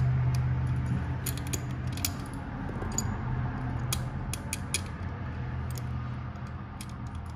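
Scattered small metallic clicks and rubbing as hands work a screw and its parts into place on the motorcycle's frame, over a steady low hum.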